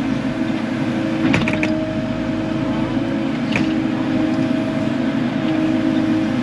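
Kubota KX080 excavator's diesel engine running steadily as it digs. A few short clicks come about a second and a half in, and another single click comes about three and a half seconds in.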